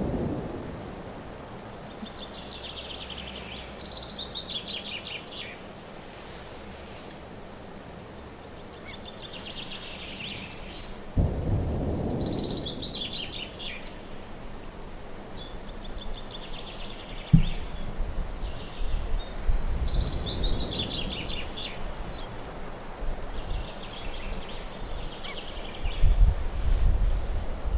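A songbird singing short trilled phrases, repeated every few seconds. Under it are low rumbles that swell a few times, and there is one sharp knock about two-thirds of the way in.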